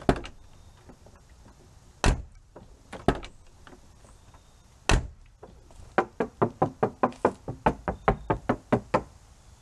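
BMW Z4 roadster door: the latch clicks as the handle is pulled, the door is swung open and shut with a few single thuds, then knuckles rap rapidly on the outer door skin, about five knocks a second for some three seconds. The door has been lined with sound-deadening mat, and the knocks test for a solid rather than tinny sound.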